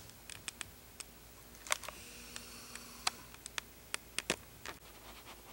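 A series of quiet, scattered light clicks and taps, about a dozen, with a louder one about a couple of seconds in and a few more near the middle.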